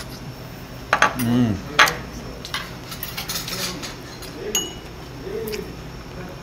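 Tableware clinking at a meal: a few separate sharp clicks of utensils against plates and dishes, one of them, about four and a half seconds in, with a short ringing tone.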